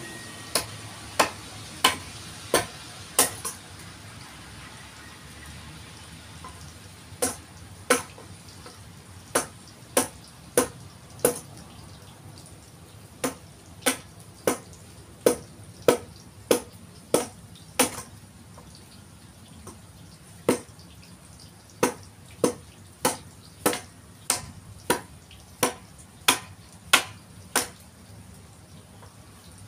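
Hand tool chopping into a forest red gum log: sharp strikes about one and a half a second, in four runs of five to eleven blows with short pauses between. Steady rain hisses underneath.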